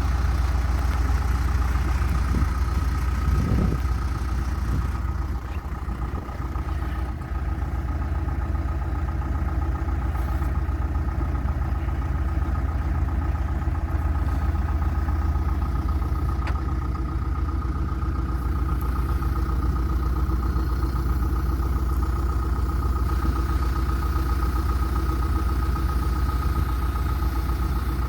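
2005 John Deere 310SG backhoe loader's diesel engine running steadily at idle, with a steady high whine over it and a few knocks a few seconds in.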